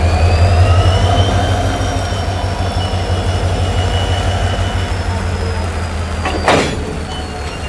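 WDP-4 diesel locomotive's EMD two-stroke engine running with a deep, steady drone while it creeps up to the coach, with a faint whine that rises and then falls in pitch. About six and a half seconds in, a single short clank as the locomotive's coupler meets the coach.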